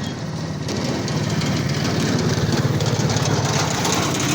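Motorcycle engine idling with a steady, rapid low beat, growing a little louder about a second in.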